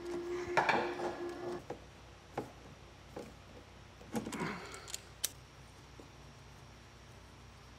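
Hand-tool handling sounds at an inverter's wiring terminal block: a screwdriver and a stripped wire rustling and clicking, with a few sharp clicks. A steady hum at the start stops after about a second and a half.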